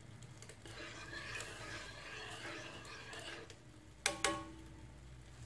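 A wooden spoon stirring milk warming in a nonstick pan, a faint swishing scrape, then two sharp knocks with a short ring about four seconds in as the spoon taps the pan.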